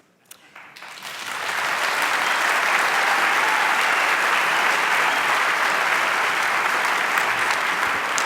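A large crowd bursting into applause, swelling within about a second and then holding as sustained clapping. It greets the announcement of a vote count that decides an election.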